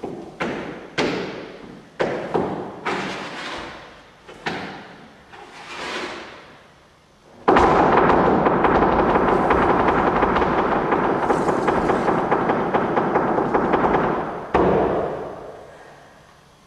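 Percussion: a string of separate strikes, each ringing out, then a fast roll for about seven seconds that ends on a final strike and fades.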